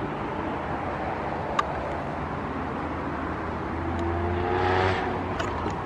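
Steady road traffic with a car driving by, its engine note swelling and rising slightly from about three and a half seconds in, then dropping away. A single sharp click comes about a second and a half in.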